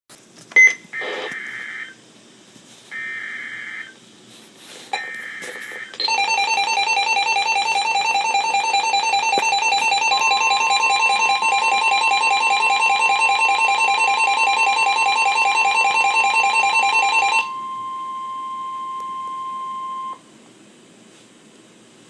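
Emergency Alert System alert on NOAA Weather Radio for a Special Marine Warning. It opens with three short bursts of the digital SAME header's data tones. About six seconds in, the Midland weather radio's own loud, fast-pulsing alert beep starts. The steady NOAA warning alarm tone joins about ten seconds in and carries on alone for a few seconds after the beeping stops.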